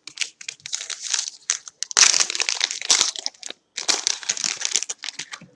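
Crinkling and crumpling of a trading card pack's plastic wrapper as it is handled and torn open, in quick irregular crackles, loudest about two seconds in.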